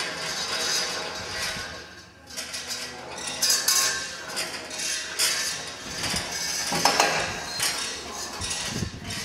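Wind-driven kinetic sculpture arm dragging its metal drawing tip across the board: irregular scraping and clinking that swells and fades, with a short lull about two seconds in and a few knocks near the middle.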